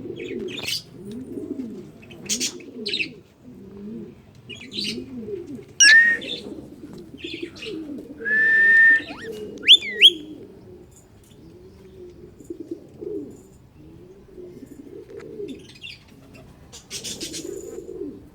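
Pigeons cooing continuously in overlapping low, rolling coos. Several loud, sharp whistled bird calls come through: one about six seconds in, a held whistle of about a second around eight and a half seconds, and a quick double whistle near ten seconds.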